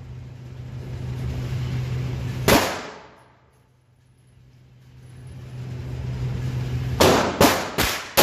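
Handgun shots: a single shot about two and a half seconds in, then four in quick succession, roughly half a second apart, near the end. A steady low hum fills the gaps between shots.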